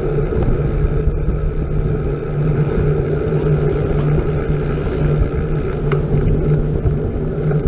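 Vehicle engine running steadily while moving, heard from on board with road and wind rush; the low engine note pulses gently throughout.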